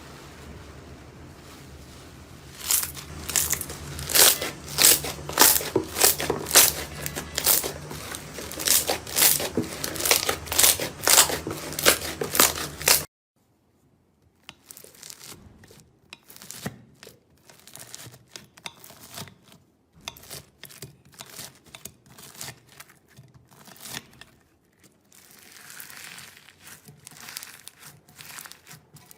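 Slime being squeezed and worked by hand, making quick, repeated crinkly crackling sounds. The crackles are loud and dense at first. After a sudden cut about 13 seconds in, they become fainter and more scattered.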